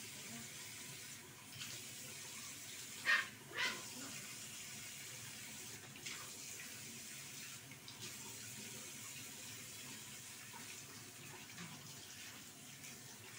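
Tap water running steadily into a bathroom sink while a puppy is washed in it, with two short sharp sounds a little after three seconds in.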